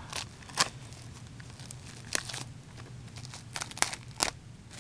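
Upper Deck plastic shrink-wrap being torn and peeled off a sealed hockey card box, crinkling in irregular short bursts.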